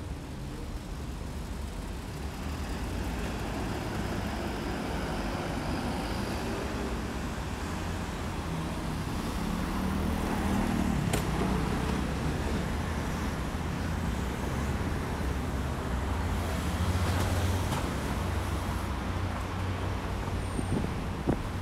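Road traffic on a city street: a steady rumble of passing cars, swelling about halfway through and again later on.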